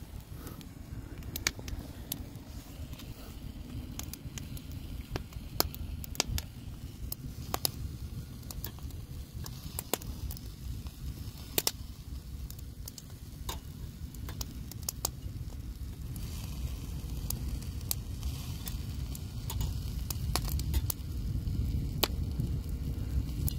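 Wood fire crackling with irregular sharp pops, and sausages and shrimp sizzling on a grill grate over it, above a steady low rumble.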